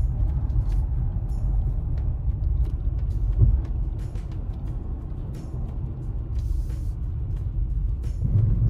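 A car driving on a snowy road, heard from inside the cabin: a steady low rumble of road noise with scattered small clicks, and a thump about three and a half seconds in.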